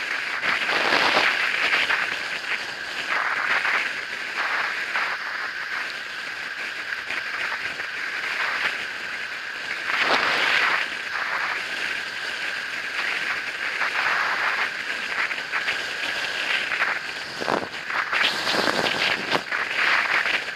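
An e-bike on the move through a blizzard: a steady high whine under a rushing noise that swells several times.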